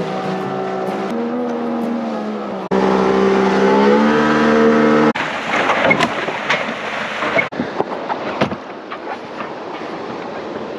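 Boat's outboard motor running at speed, a steady engine note that shifts a little in pitch. About five seconds in, it gives way to a rougher, noisier stretch with scattered clicks and knocks.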